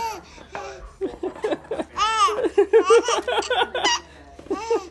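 Infant boy laughing hard in a quick run of short bursts, with a longer rising-and-falling laugh about two seconds in and another near the end.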